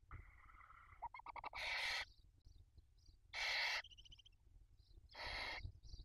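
Barn owl chicks begging at the nest with three loud rasping hisses, each about half a second long and spaced about a second and a half to two seconds apart. Softer, higher chittering calls come in between, while an adult feeds them.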